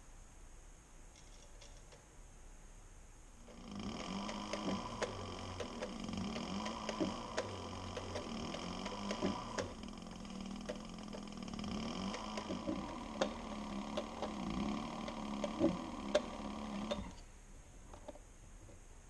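Cobra heavy-duty leather sewing machine stitching through two glued layers of harness leather. It starts a few seconds in, runs steadily for about thirteen seconds with a hum and a scatter of clicks, then stops suddenly.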